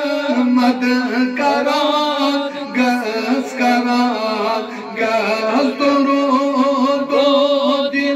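Two men's voices singing a Kashmiri naat, a devotional song in praise of the Prophet, in a chant-like melody, with one voice sung into a handheld microphone.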